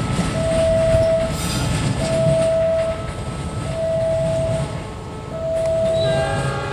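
A passing train rumbles while a level-crossing alarm repeats a single steady beep, about a second long, every second and a half or so. Near the end a horn sounding several notes at once joins in.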